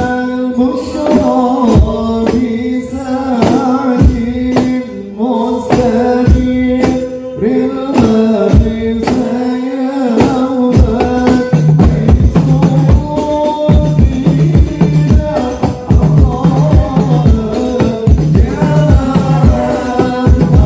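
Men singing sholawat to rebana frame drums, which beat a fast, steady rhythm with deep drum strokes underneath.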